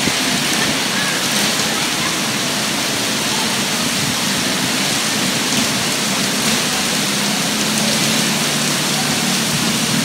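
Steady rain falling, a continuous even hiss with no breaks.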